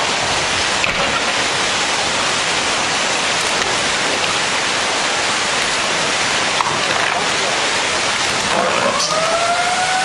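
Floodwater surging through a town street, a steady loud rushing with floating cars carried along in it. Near the end a long wailing tone rises in and holds.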